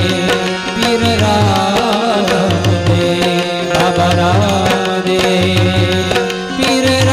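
Instrumental interlude of devotional aarti music: a harmonium melody over a sustained drone, with a steady hand-drum rhythm.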